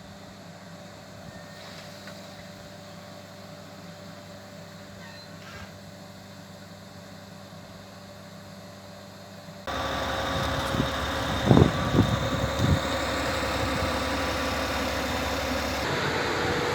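A train running at a station: first a faint steady drone, then, after an abrupt cut about ten seconds in, much louder and closer, with a steady whine over the noise and a few sharp knocks.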